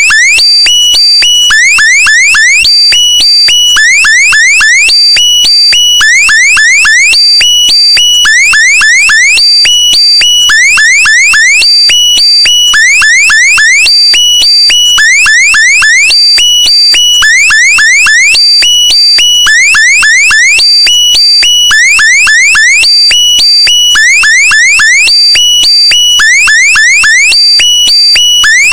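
A loud, alarm-like electronic sound effect looped over and over: pulsing high beeps with quick rising chirps, repeating in an even pattern.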